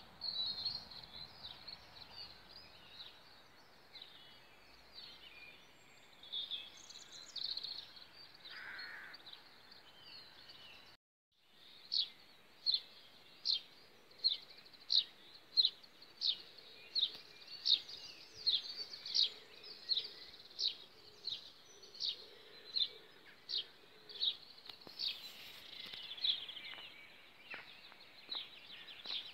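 Mixed songbird calls for the first ten seconds or so. Then, after a short break, a sparrow chirping over and over in a steady series, about three chirps every two seconds.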